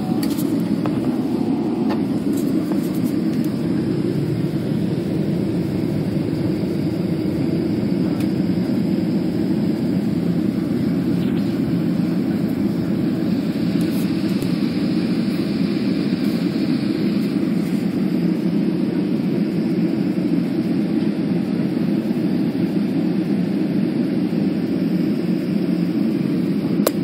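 Steady engine and airflow noise heard inside the cabin of a Boeing 777-300ER airliner, its GE90 jet engines running as it moves on the ground before take-off.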